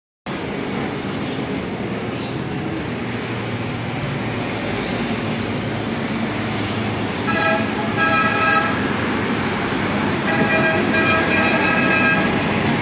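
Road traffic running steadily, with vehicle horns honking in short repeated toots about 7 seconds in and again from about 10 seconds.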